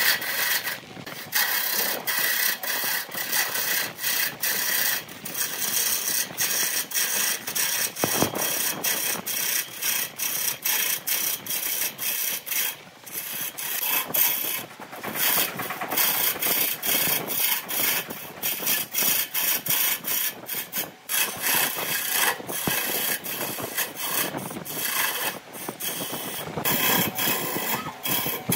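A lathe gouge cutting a spinning wood blank on a wood lathe: a loud scraping of steel on wood, broken by many short irregular gaps as the tool bites and shavings fly off.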